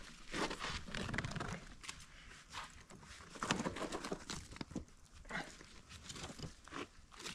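Dry twigs and branches crackling and rustling, with clothing and shoes scraping on rock, as a person climbs down a steep boulder face. Irregular short scrapes and snaps come and go throughout.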